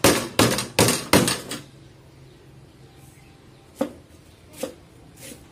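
Ginger and lemongrass being smashed and chopped fine: heavy, even strokes about two and a half a second that stop about a second and a half in, followed by two lighter knocks near the end.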